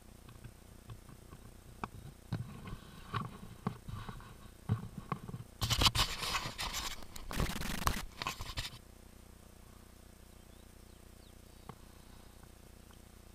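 Mountain bike rattling and knocking over bumps on a loose dirt trail, then a loud rushing scrape lasting about three seconds, after which it goes quiet as the bike stops.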